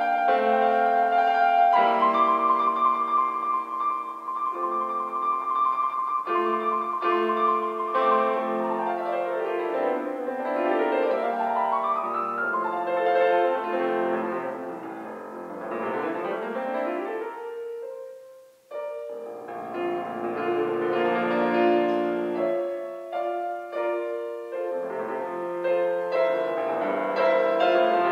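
Solo grand piano: a long trill, then fast sweeping runs down and up the keyboard, a short break about two-thirds through, and then dense passagework and chords.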